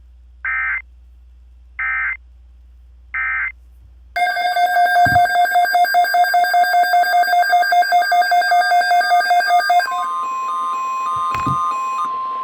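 Emergency Alert System tones: three short bursts of SAME digital header data, then a harsh pulsing alert tone repeating about five times a second. About ten seconds in it gives way to a steady single-pitch alarm tone, the NOAA Weather Radio warning tone.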